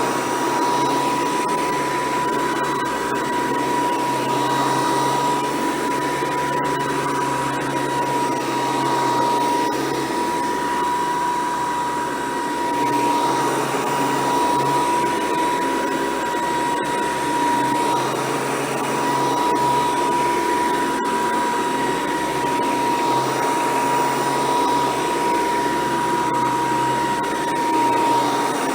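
Hoover Decade 800 upright vacuum cleaner running steadily, its motor holding a high, even whine over the rush of air, with gentle swells in level.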